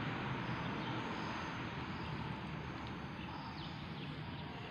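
Steady background room noise with a few faint, short, high falling chirps around the middle.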